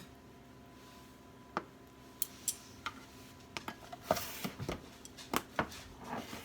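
Kitchen utensils tapping and clinking against dishes: scattered light clicks that come thicker in the second half, with a short scrape partway through.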